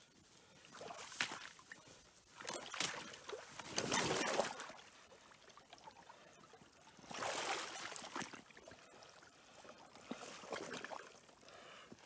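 Wading in chest waders through deep mud and water, sinking to the waist: water and mud sloshing and splashing in a few irregular surges, loudest about four seconds in.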